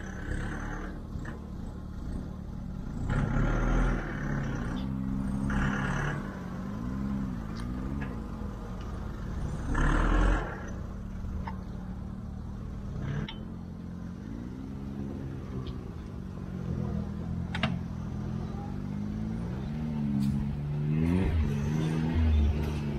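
UTV engine revving up and down over and over, its pitch rising and falling, with a few short rushes of noise along the way.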